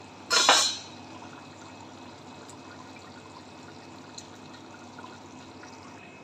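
Pot of prawn broth boiling on the stove: a steady bubbling hiss, with a short loud burst of noise about half a second in.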